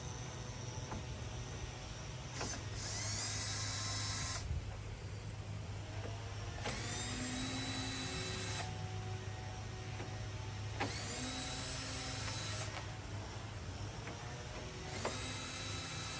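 Power drill with a T20 Torx bit backing out grille bolts, in four short runs of about two seconds each. Each run rises quickly in pitch as the motor spins up and then holds steady.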